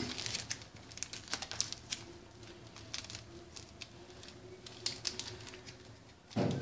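Light, irregular clicks and ticks of small paper sachets of baking powder being handled, opened and emptied into a stainless-steel mixing bowl of egg batter.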